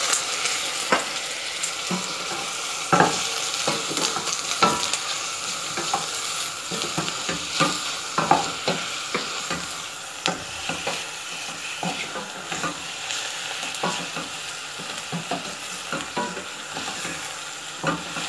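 Chicken pieces sizzling in oil with sautéed onion, garlic and ginger in a stainless steel pot, while a spatula stirs them, scraping and knocking against the pot at irregular intervals.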